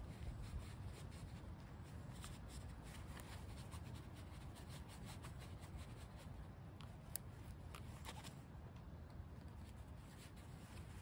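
Knife blade shaving a dry wooden stick, faint scraping in many short strokes, with one sharper click about seven seconds in.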